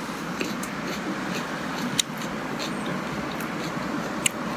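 Steady road-traffic noise, with a few sharp crunches as a raw serrano pepper is bitten and chewed.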